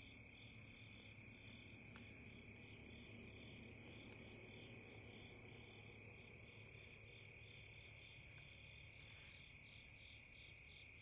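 Faint chorus of crickets and other insects: a steady high trill, with a softer pulsing call repeating about twice a second.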